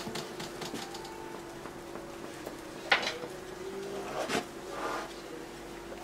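Light taps and scrapes of a palette knife laying thick oil paint, with a sharp click about three seconds in and a smaller one just after four seconds, over a steady low hum.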